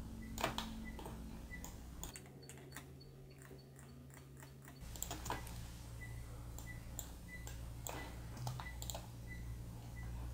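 A few scattered clicks of a computer mouse and keyboard over a steady low hum.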